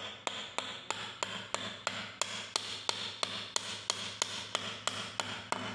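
Soft-faced hammer lightly tapping a tight-fitting bolt through a crankshaft: an even series of sharp taps, about three a second.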